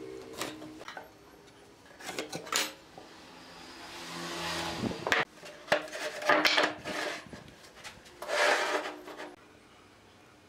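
Wooden boards being handled on a wooden workbench: several sharp knocks as they are set down or bumped together, and a couple of longer scraping rubs as wood slides across the bench.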